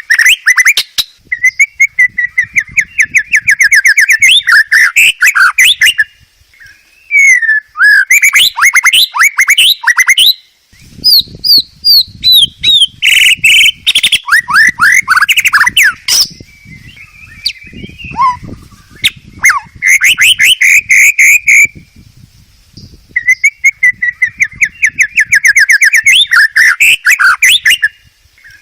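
White-rumped shama singing loudly: varied phrases of fast trills and sweeping whistles, in bursts a few seconds long with brief pauses between.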